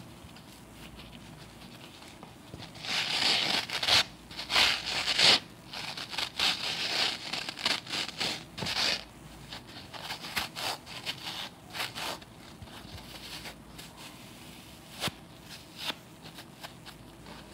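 Kitchen scrub sponges, pink cellulose sponge backed with a green scouring pad, squeezed and rubbed by hand: dry, crunchy, scratchy crackling in bursts. It is loudest from about three to six seconds in, then gives way to lighter scratching and two short clicks near the end.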